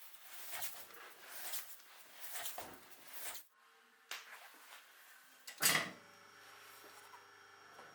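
Household handling noises, a series of soft rubbing or sliding strokes, that cut off suddenly. A small click and a single sharp knock follow, then soft music with held notes begins.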